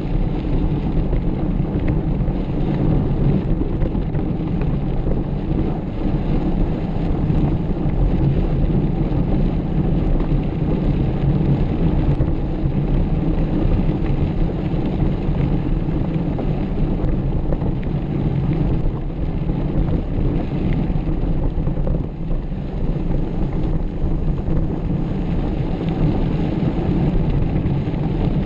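Steady wind buffeting and rumble on the microphone of a camera riding along on a mountain bike, loud and low with no breaks.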